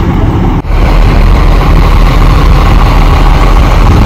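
Large bus engine idling up close, a loud steady low rumble.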